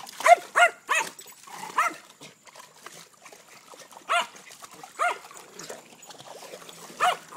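A dog barking: about seven single barks, three in quick succession at the start, then spaced a second or two apart.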